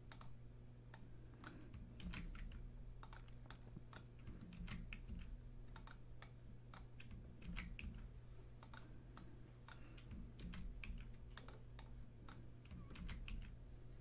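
Faint computer keyboard typing in short irregular bursts of keystrokes, entering text into a spreadsheet-like form.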